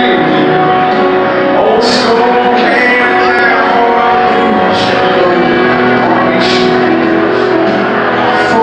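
Live country band playing loud in a large hall, with a singer's voice over the instruments.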